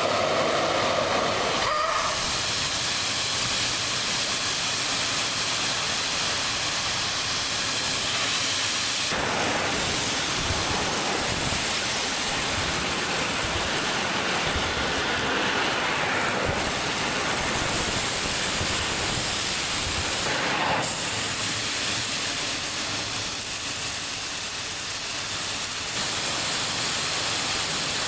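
Pneumatic grain vacuum running with a loud, steady hiss of air and grain, the sound shifting abruptly several times.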